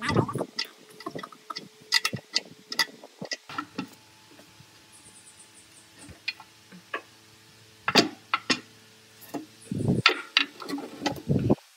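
Irregular sharp clicks, clinks and knocks of metal parts and hand tools being worked on the planer, with louder clusters at the start, about eight seconds in, and around ten to eleven seconds in.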